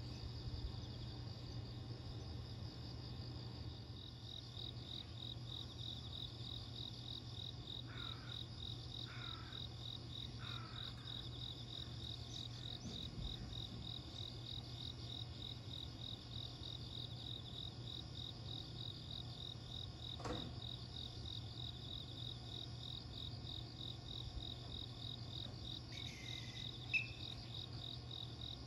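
Crickets chirping in a steady, fast-pulsing trill over a low, steady hum, with a few short chirps and a single click partway through.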